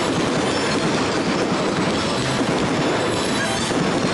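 Fireworks display in full barrage: many shell bursts and crackles overlapping into a dense, steady rumble, with no single bang standing out.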